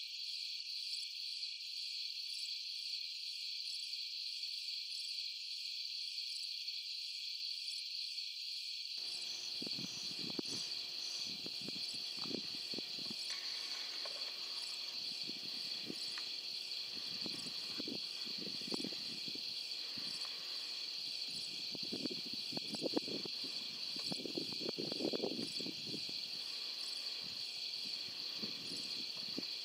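Night insect chorus: a steady, high-pitched chirring with a fast regular pulse. About a third of the way in, irregular soft rustles and knocks join it, loudest near the end.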